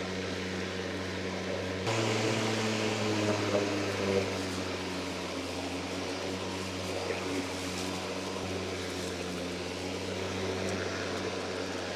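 Worx Nitro WG761E cordless 40V lawnmower's motor running while it cuts grass. About two seconds in, the motor suddenly speeds up, rising in pitch and loudness. The hum settles lower again later on. This is the speed change of its intelligent mode when it comes to thicker grass.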